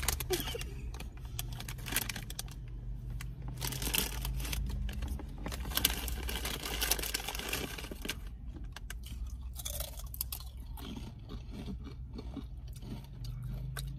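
Bean chips being crunched and chewed close to the microphone: a run of irregular crisp crackles.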